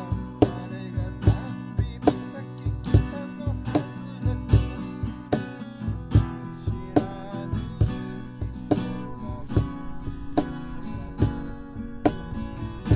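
Acoustic guitar strummed in a steady rhythm, about one strong stroke each second, in an instrumental passage without singing.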